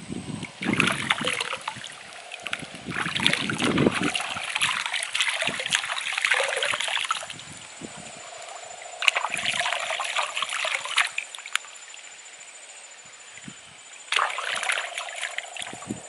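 Hands splashing and sloshing in shallow stream water in four bursts of a few seconds each, as a handful of small berries is rinsed.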